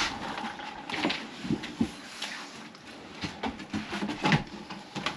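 Scattered light knocks and clunks of a glazed Velux roof-window sash being carried and offered up into its frame.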